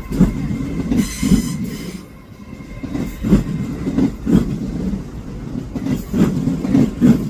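A train running along the platform, its wheels knocking over the rail joints in an uneven series of heavy clunks over a continuous low rumble.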